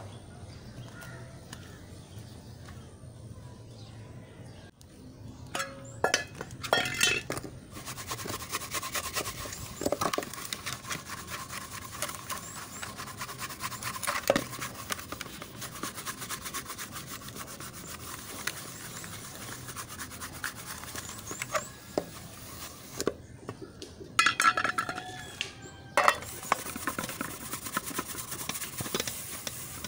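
Aluminium cooking pot being scrubbed by hand, a fast, steady rasping rub, broken in two spells by the sharp clinks of metal pots knocking together as they are handled.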